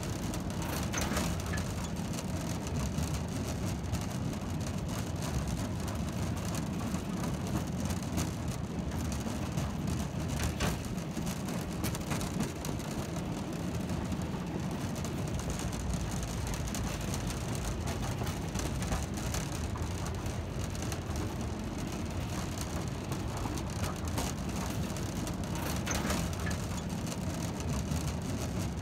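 Steady rumble of the Ffestiniog Railway gravity train's narrow-gauge slate wagons freewheeling downhill with no locomotive: steel wheels rolling on the rails, with a few sharper clicks.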